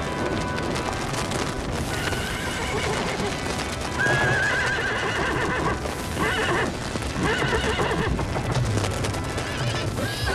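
Horses neighing several times, shrill warbling whinnies starting about four seconds in, with hooves clattering beneath.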